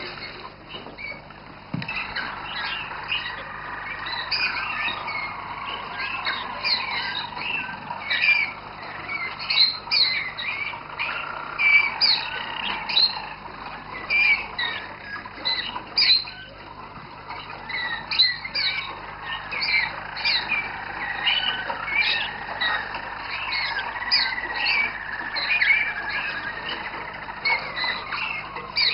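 Roller canary song: a continuous, low rolling song line with many quick chirps and trills laid over it, growing louder about two seconds in.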